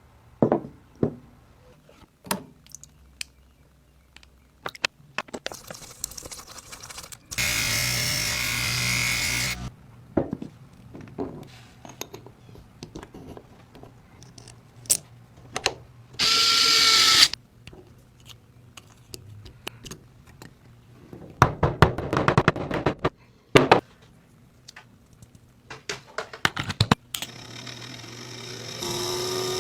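A small power tool, such as a drill or rotary tool, running in several short bursts of a second or two, one with a steady whine. Between the bursts come scattered clicks and knocks of tools and parts being handled.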